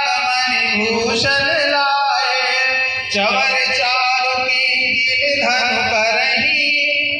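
A man's voice singing a Hindu devotional chant over a microphone and loudspeakers, in long held, wavering notes, with a short break about three seconds in.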